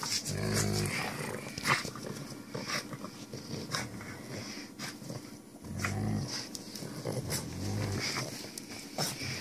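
Two dogs growling in play while tugging at a toy: short low growls near the start, around six seconds in, and again about a second and a half later, among scattered sharp clicks and scuffles.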